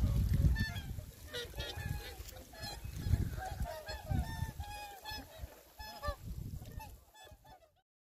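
Several whooper swans calling, many short honks overlapping one another. A low rumble sits under the first second, and the calls fade out near the end.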